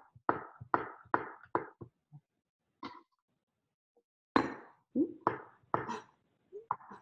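Kitchen knife chopping radishes on a wooden cutting board: a run of sharp chops about two or three a second, a pause of a couple of seconds, then another run of chops.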